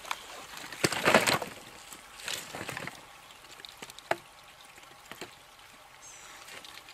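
Dry dead branches dropped onto a woodpile, a loud clatter of wood on wood about a second in, followed by a few lighter knocks as sticks are settled.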